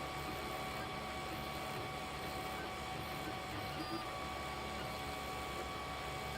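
Desktop 3D printer printing in ABS: a steady whir with several held whining tones from the stepper motors and cooling fan, one tone shifting slightly about four seconds in as the head's motion changes.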